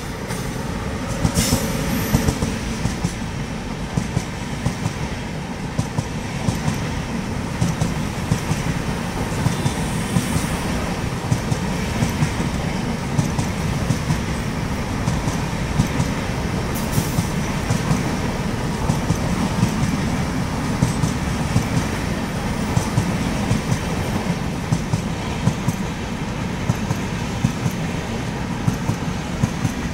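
Long express train of red LHB passenger coaches, hauled by an electric locomotive, rolling past close by: a steady rumble with a regular clatter of wheels over rail joints. A Mumbai suburban EMU runs by on the next track partway through.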